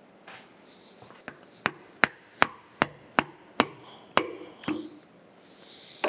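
Lead hammer striking the stuck quill of a Monarch 612 lathe's cast-iron tailstock, about nine sharp blows at roughly two or three a second, driving the seized quill. Another clank near the end.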